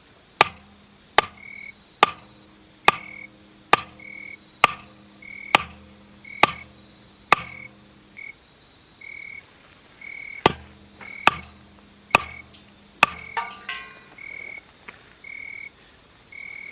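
Sharp, even hammer strikes, about one a second, each with a short metallic ring: a campfire stand's ground stake being driven into the earth. There is a run of nine, then a pause of about three seconds, then four more and a brief rattle. Short high chirps repeat steadily behind.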